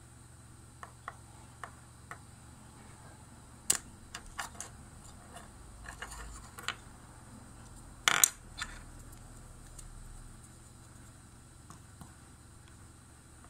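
Scattered light clicks and taps of small tools and microphone parts being handled on a work surface. A sharper click comes a little under four seconds in, and the loudest, a short rattle, comes about eight seconds in.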